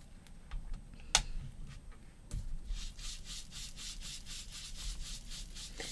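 Ink pad rubbed in quick back-and-forth strokes along the edges of paper, about four strokes a second, a dry scratchy brushing sound. A sharp click comes about a second in.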